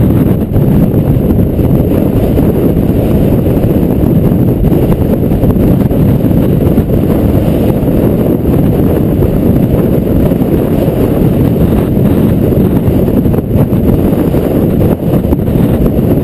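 Strong wind blasting the microphone: a loud, steady low rumble.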